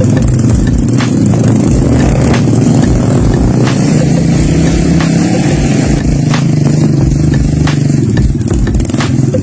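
Motorcycle engine running at a steady cruising pace while riding, under a gusty low rumble of wind on the microphone, with occasional sharp clicks.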